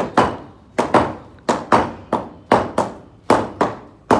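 Hand hammers striking and chipping an old cement floor screed to break it up: a steady run of sharp knocks, about two or three a second, often in close pairs.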